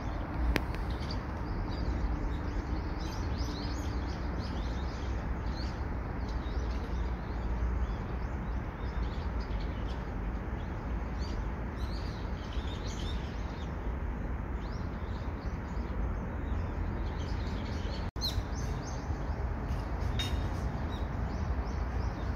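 Small birds chirping, many short calls scattered throughout, over a steady low outdoor rumble.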